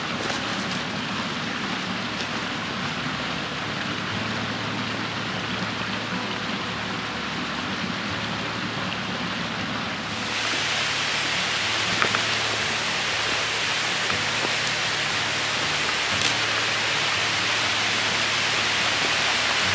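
Steady rushing water, an even hiss that becomes louder and brighter about ten seconds in.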